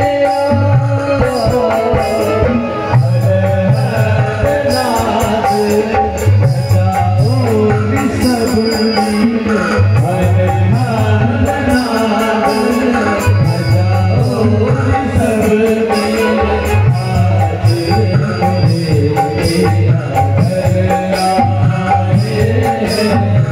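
Live Indian wedding-stage music: a tabla-like hand drum keeps a steady rhythm under a winding melody line.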